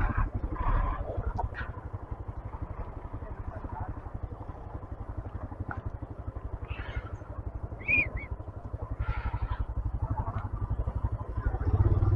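Small 125cc motorcycle engine running at low revs with a fast, even pulse, and it gets louder near the end. A brief high chirp sounds about two-thirds of the way through.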